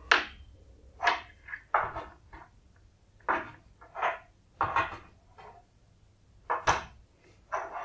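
Wooden ball-headed pins being pushed one at a time into the holes of a wooden pegboard: about a dozen short wooden knocks and taps at irregular spacing.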